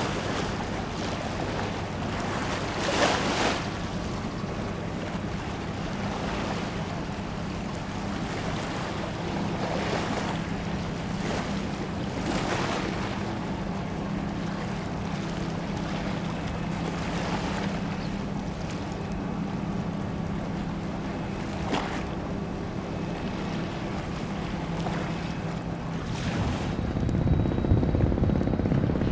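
Waterside ambience: wind and lapping water swelling and easing over a steady low machine hum. Near the end the sound turns to a deeper rumble of wind on the microphone.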